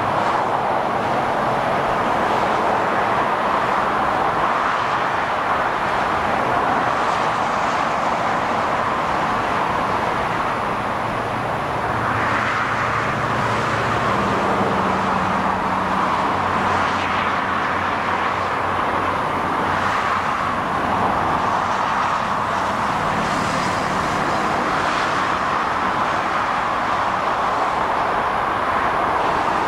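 Steady hiss of multi-lane freeway traffic, tyres on pavement, with single vehicles swelling past every few seconds and a low engine drone from heavier vehicles near the middle.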